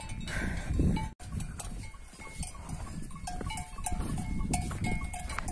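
Bells on grazing sheep clanking irregularly, with short ringing notes that come more often from about three seconds in.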